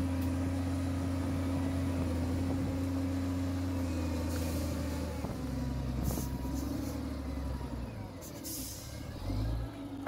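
SDLG L953F wheel loader's diesel engine running steadily as it drives over and spreads loose laterite. The engine note shifts about four seconds in, and several short hissing bursts come in the second half.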